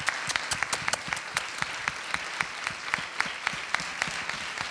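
Audience applauding, with individual hand claps close by standing out sharply from the general clapping.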